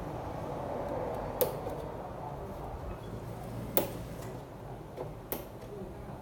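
A few sharp, separate clicks and taps of parts and tools being handled while an LG TV is worked on, over a low steady hum.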